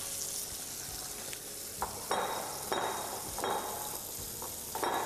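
Food sizzling in a hot pan, a steady hiss, with several short, louder bursts of noise from about two seconds in.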